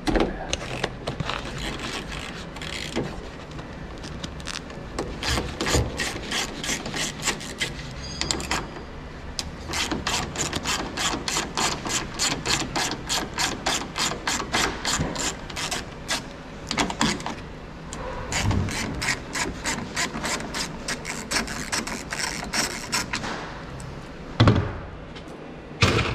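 Ratchet with a 10mm socket clicking in long runs of quick, even clicks, with short pauses, as the door handle's three 10mm bolts are undone. A few louder knocks near the end.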